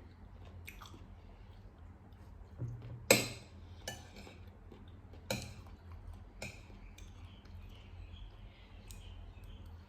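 Cutlery clinking against a plate or bowl while eating: several separate sharp clinks, the loudest about three seconds in, over a faint steady low hum.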